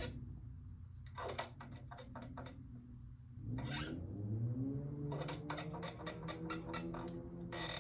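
Scattered light metallic clicks and rubbing from hand work on a motorcycle's rear brake: a wrench on the caliper bleeder screw while the brake is pumped to push out old fluid. A low hum rises in pitch through the middle.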